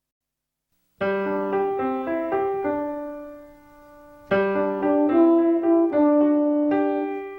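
Piano-like keyboard music. It starts after about a second of silence with a phrase of chords that dies away, and a second, louder phrase begins a little past halfway.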